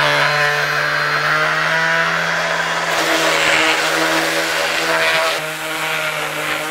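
Cordless DeWalt random orbit sander running steadily with 220-grit paper, sanding along the edges of a stack of wooden shiplap strips: a constant motor hum under a sanding hiss, a little quieter near the end.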